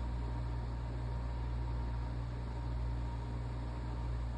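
Steady low hum with an even background hiss and no other events.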